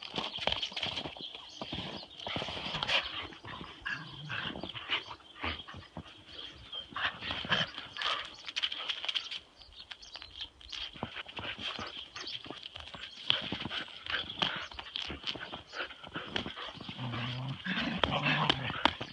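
The hooves of a lamb and the paws of border collies clicking and scuffing on a wet, gritty tarmac driveway as they run about in play, many short irregular steps. Short low vocal sounds come near the end.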